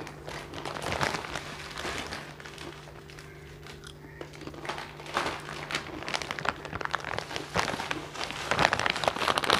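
Clear plastic snack bags crinkling and rustling as they are handled and opened, in irregular bursts, over a steady low hum.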